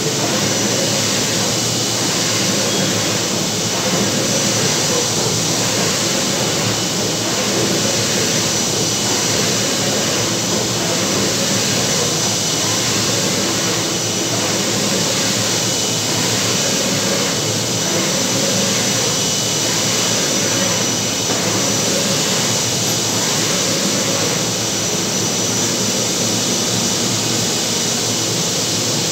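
UV flatbed printer running while printing: a steady loud whir of fans and machinery, with a faint pulse about once a second as the print carriage sweeps back and forth.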